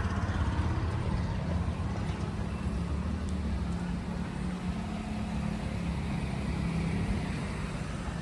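Steady low rumble of road traffic, with an engine hum underneath.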